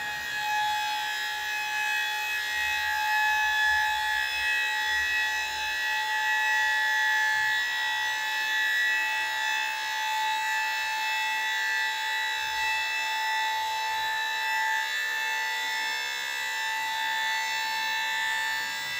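Monroe dump body's hydraulic hoist pump running with a steady high whine as it raises the stainless steel body.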